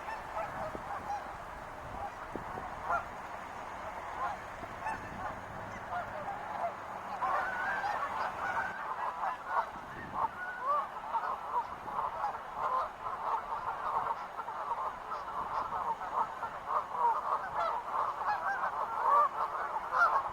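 A flock of wild geese honking, many calls overlapping. The calling grows louder and denser about seven seconds in.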